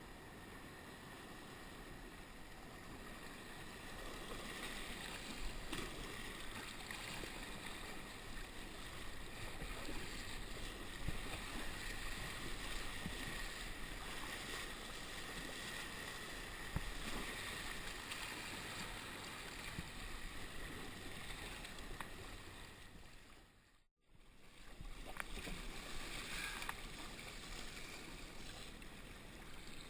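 Water rushing and splashing along a sea kayak's hull and around the paddle blades as it is paddled through choppy sea, with wind on the microphone. The sound drops out briefly about three-quarters of the way through, then the water noise returns.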